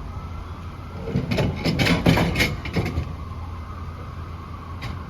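Steady rumble of a running vehicle, with a cluster of sharp clattering knocks about a second and a half in and a single click near the end.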